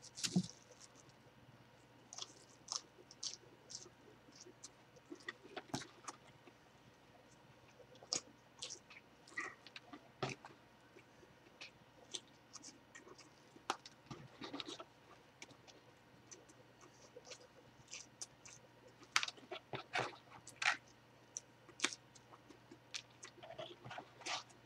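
A man chewing whole ghost chili peppers fast: faint, irregular crunches and wet mouth clicks, with a louder run of them near the end.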